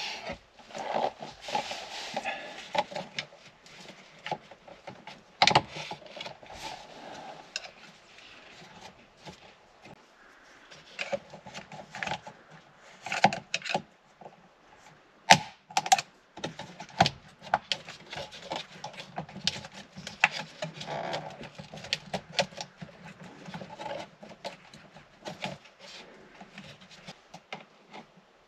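Scattered sharp clicks, taps and light rattles of hands and tools working at plastic trim clips under a car's steering column, with quieter rubbing between them.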